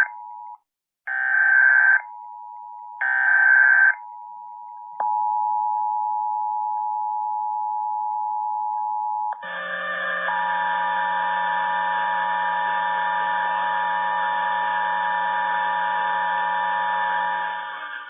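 Emergency Alert System tones: the last of three one-second SAME data-header bursts, with a steady two-tone attention signal under them. The two-tone attention signal then sounds steadily and gets louder about 5 s in, and about 9 s in a harsher mix of many steady tones joins it.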